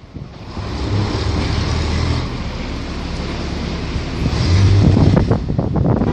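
Strong wind gusting over the microphone: a loud, rumbling buffeting with a hiss above it, swelling about half a second in and again near the end.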